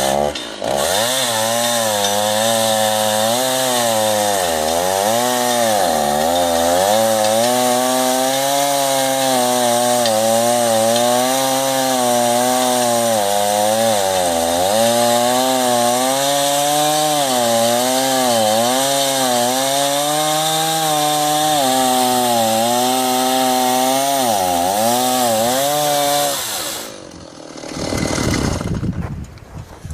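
Chainsaw in an Alaskan chainsaw mill ripping lengthwise through a log at full throttle, its engine note dipping and recovering again and again as the chain bogs under load in the cut. About 27 seconds in the throttle is released and the engine note drops away. The cut runs smoothly without binding.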